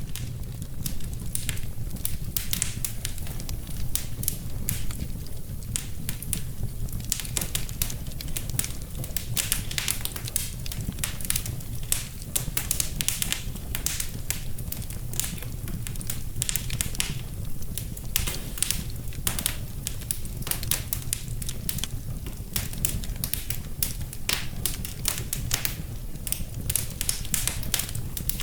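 Wood fire in a fireplace crackling and popping: dense, irregular sharp crackles over a steady low rumble.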